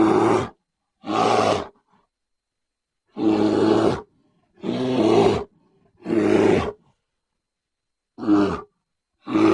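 Brown bear roaring and growling in short separate calls, six in a row with dead silence between them, and a seventh starting at the very end. Each call is a low, rough roar lasting about half a second to a second.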